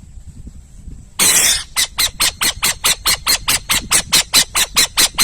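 Owl calling: one long harsh screech about a second in, then a rapid, even run of short harsh notes, about four or five a second.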